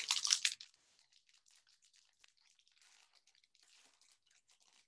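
Foil wrapper of a baseball card pack crinkling and tearing as it is opened by hand, loudest in the first half-second, then faint crinkles.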